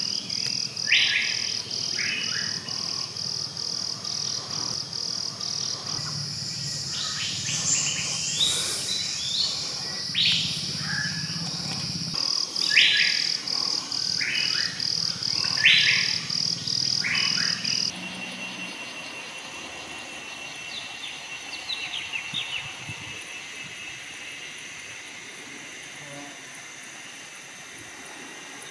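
Forest ambience: a high-pitched insect call pulsing evenly about two to three times a second, with short bird calls over it. The insect pulsing stops abruptly about two-thirds of the way through, leaving fainter bird chirps.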